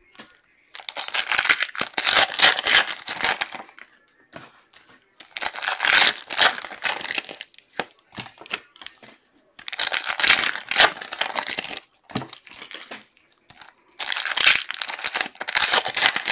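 Foil wrappers of football trading card packs being torn open and crinkled by hand, in four rustling bursts of a few seconds each with short pauses between.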